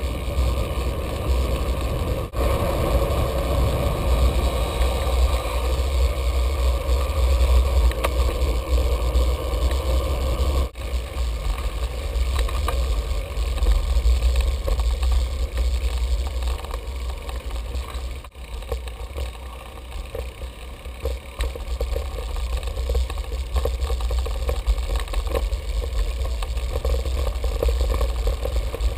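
Wind buffeting the microphone of a GoPro on a moving bicycle, a steady deep rumble, with tyre noise on pavement and small clicks and rattles from the bike. The rumble eases a little past the middle.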